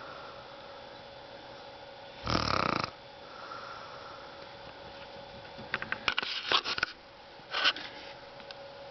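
A woman snoring in her sleep. There is a loud rasping snore about two seconds in, a rattling, clicky stretch a little past the middle, and a shorter snore soon after.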